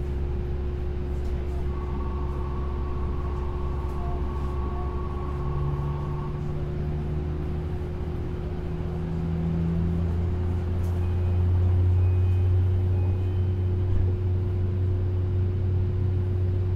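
Tokyo Monorail 10000 series train running, heard from inside the car: a steady hum over a low rumble, with a faint whine that rises in pitch midway and a rumble that swells after about ten seconds. The drive is an IGBT-VVVF inverter.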